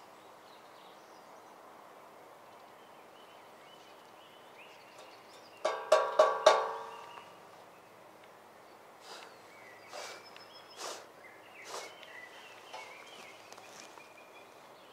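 Four quick metallic clanks about six seconds in, each ringing briefly, followed by a few fainter knocks.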